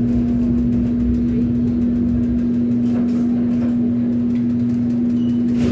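Steady hum of running kitchen machinery, with one strong constant tone over a low rumble.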